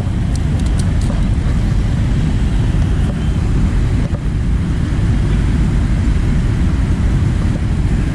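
Wind buffeting the camera's microphone: a loud, unbroken rumble that rises and falls slightly, heaviest in the low end.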